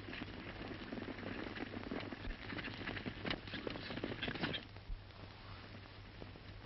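A herd of horses galloping, a dense, uneven clatter of many hooves on dirt that drops to a thinner, quieter patter about four and a half seconds in.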